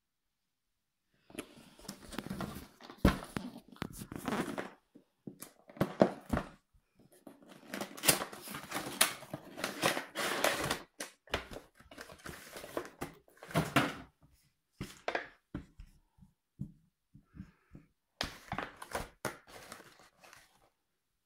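Cardboard packaging handled by hand: a headphone box opened, with rustling and scraping of the cardboard and a plastic tray, broken by several sharp knocks and taps.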